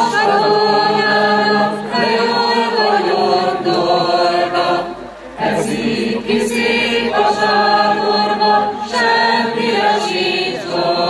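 A mixed choir of men and women singing a cappella under a conductor, in held chords sung in short phrases, with a brief pause about five seconds in.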